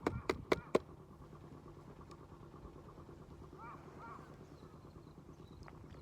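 A rapid series of loud honking bird calls, about four a second, stops within the first second. A steady low drone follows, with two short bird chirps near the middle.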